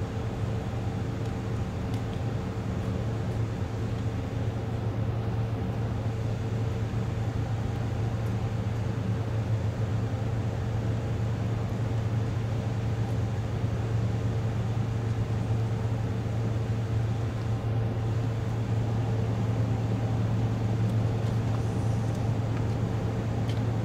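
Steady low drone of the car ferry Silver Queen's diesel engines as it approaches the berth, with a faint steady whine above the hum, growing slightly louder as the ship draws nearer.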